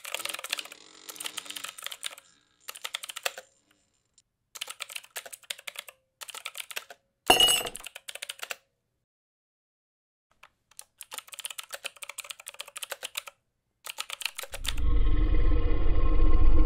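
Mechanical keyboard typing sound effect: runs of rapid key clicks in short bursts with dead-silent gaps between them. There is one louder, sharper hit about seven seconds in. Near the end a steady low drone sets in.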